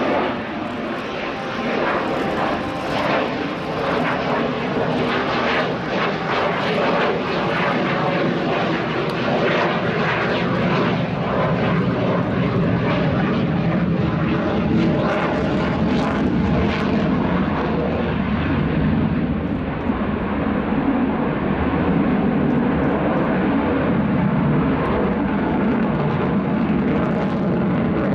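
The twin afterburning jet engines of a Sukhoi Su-27 fighter run loud and steady through a slow-speed, high-angle-of-attack pass. A crackle rides on top of the roar for the first half, then the sound dulls as its high end falls away later on.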